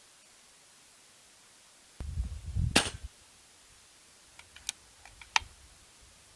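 A single shot from an Air Arms S510 FAC .22 pre-charged air rifle: one sharp crack about three seconds in, with a low rumble just before it. It is followed a couple of seconds later by a few light clicks.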